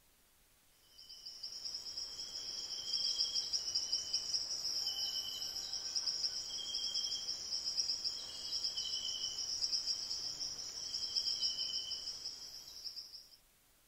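An insect, a cricket or bush-cricket, gives a continuous high-pitched buzzing trill that fades in about a second in and fades out near the end. A softer, lower trill comes and goes beneath it.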